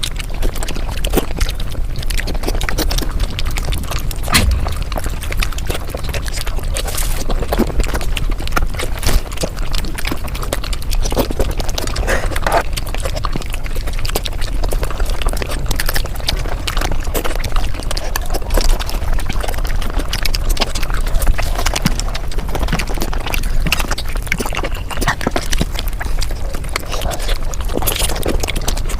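Mukbang eating sounds sped up to five times normal speed: chewing and mouth clicks run together into a rapid, dense patter of clicks.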